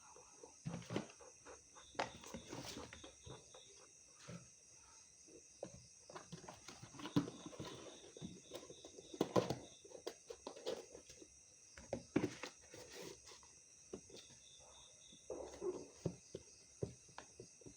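Irregular knocks, taps and rustles of things being handled, over a steady high chirring of insects.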